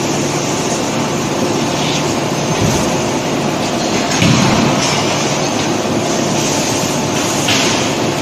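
Forge-shop machinery around a mechanical forging press running as a steady, loud din, with a heavier surge about four seconds in and a brighter one near the end.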